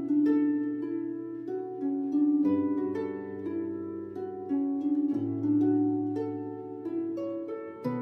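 Background music: a melody of plucked-string notes over held low bass notes.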